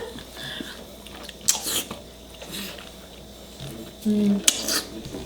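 Close-up mouth sounds of food being bitten and chewed: scattered wet, smacking crackles, with a short voiced hum about four seconds in.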